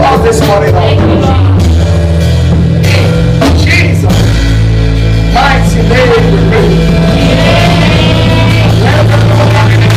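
Loud live praise band music with drums, heavy bass and singing voices.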